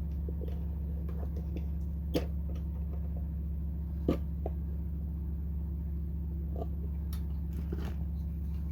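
Clicks and light knocks from handling the plastic parts of a phone tripod, with two sharper clicks about two and four seconds in, over a steady low hum.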